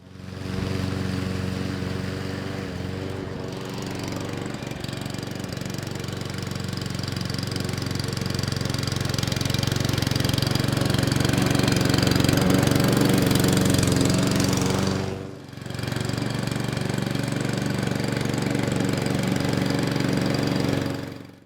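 Petrol rotary lawnmower's 173cc single-cylinder OHV engine running steadily, dipping briefly about two-thirds of the way through before running on.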